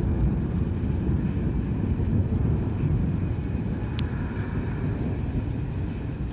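Gusting wind of an approaching thunderstorm buffeting the microphone as a low, uneven rumble, with a brief faint click about four seconds in.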